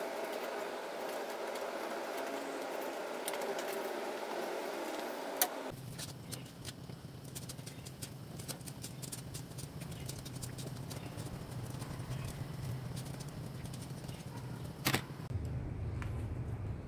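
Oil and caramelizing sugar sizzling and crackling in a wok as banana spring rolls (turon) fry, with occasional sharp clicks of metal tongs against the pan.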